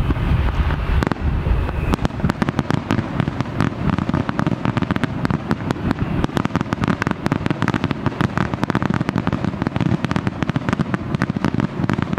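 Fireworks display: deep booms from shell bursts in the first couple of seconds, then a long dense run of sharp crackling pops, many a second.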